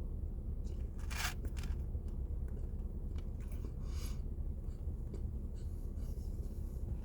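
A few short rustling, scraping noises from handling food while eating a cinnamon roll, about a second in and again around four seconds, over a steady low hum.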